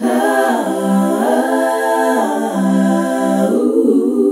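Short a cappella vocal jingle: sung notes held and sliding from one pitch to the next, with no instruments.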